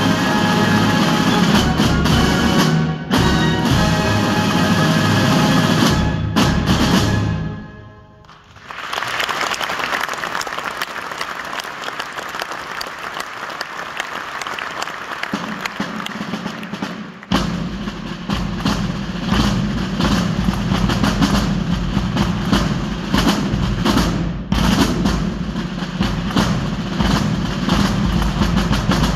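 A corps of drums' rope-tensioned side drums playing a drum display piece. Loud, dense drumming breaks off at about eight seconds into a quieter passage of rapid strokes, and the full loud drumming comes back in at about seventeen seconds.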